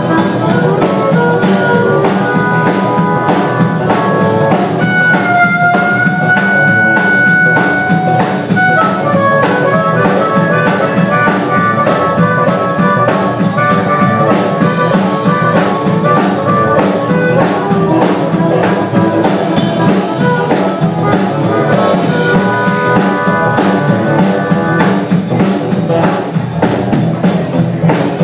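Live blues band playing: electric guitar, bass guitar and drum kit keep a steady beat while a harmonica plays the lead, holding one long note about five seconds in.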